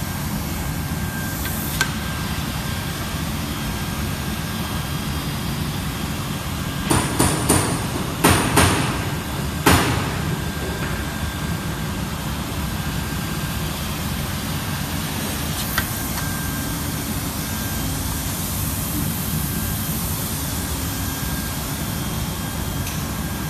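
Lesite LST-WP1 hot-air roof welding machine running: its blower gives a steady rushing noise with a faint steady whine. A short cluster of sharp knocks and clatter comes about a third of the way through.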